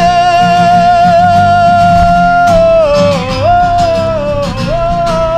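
A man singing with his own strummed acoustic guitar, holding one long high note for about two and a half seconds before his voice slides down and back up.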